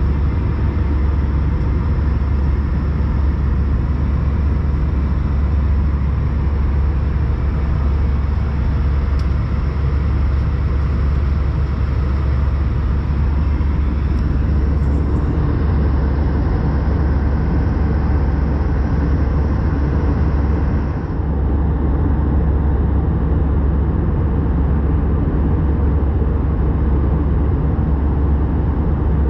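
Steady cabin noise of an Airbus A320-214 in cruise, heard from inside the cabin: a deep, even rumble of the CFM56 engines and airflow, with a hiss above it that thins slightly about two-thirds of the way through.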